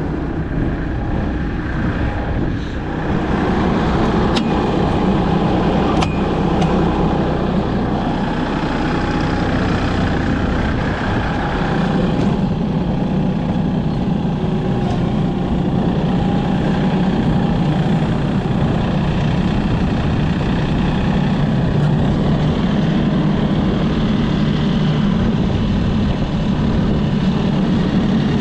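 Heavy vehicle engine running steadily under load, as while plowing snow, with a couple of light clicks in the first few seconds.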